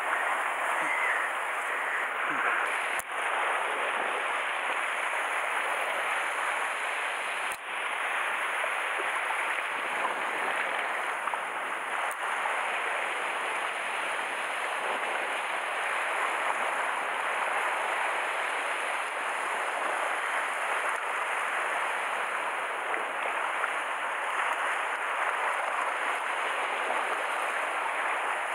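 Sea surf washing against a rocky shoreline: a steady, even hiss of moving water with no distinct breaks.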